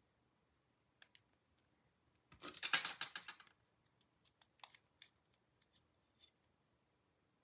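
Small, sharp clicks and ticks of plastic mouse parts and small tools being handled. A little over two seconds in comes a dense crackling scrape lasting about a second, the loudest sound here.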